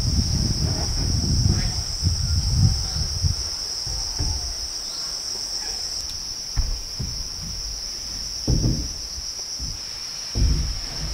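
A steady high-pitched drone of insects, with dull thumps and knocks close by, busy in the first three seconds and then a few single thumps.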